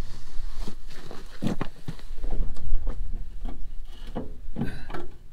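Irregular clicks, knocks and clunks of hands working on parts in a truck's engine compartment, over a constant low rumble.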